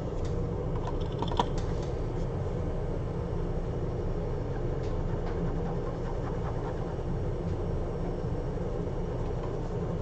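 Steady low machine hum from the repair bench, with a few faint clicks and taps about a second in.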